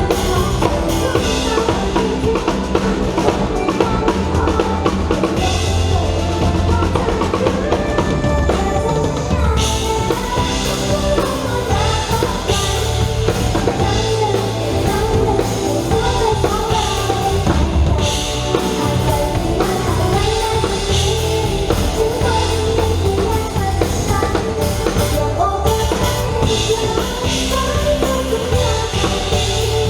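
Live band playing a pop-rock song, with a drum kit keeping a steady beat under the melody.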